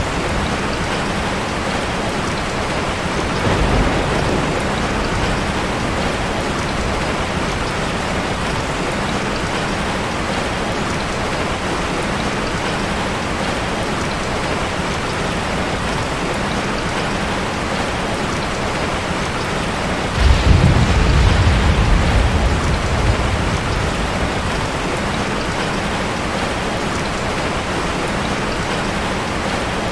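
Heavy rain falling steadily. A low thunder rumble comes in briefly a few seconds in, and a louder thunderclap breaks suddenly about twenty seconds in and rolls away over a few seconds.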